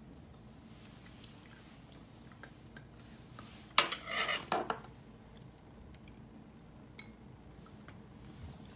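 Dishes and cutlery clattering on a table in a short burst of several knocks and clinks about four seconds in, with a few light clicks of a spoon against a bowl elsewhere.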